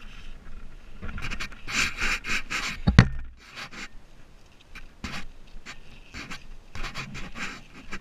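A backpack being handled and opened with gloved hands: fabric rustling and scraping in quick strokes, with one sharp knock about three seconds in.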